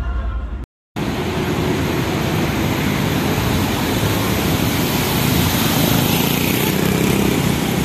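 Steady loud outdoor background noise, an even rush with no clear voices or engine tones. It starts about a second in, right after the music cuts to a brief silence.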